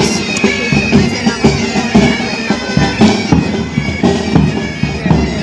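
Pipe band playing: bagpipes sounding a sustained melody over a steady beat of drums.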